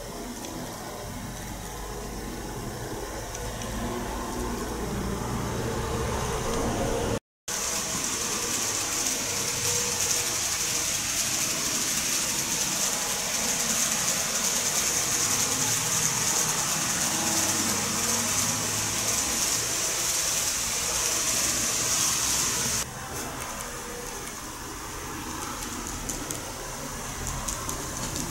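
N-gauge model trains running on the layout track, a steady rolling hiss of small wheels on the rails. It cuts out briefly about seven seconds in and returns louder with a strong high hiss, then drops back to a lower hiss near the end.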